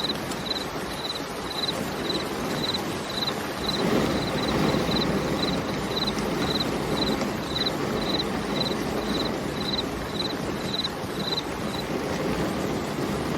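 Steady rain falling, a dense even hiss. Over it, a short high chirp repeats about twice a second and stops near the end.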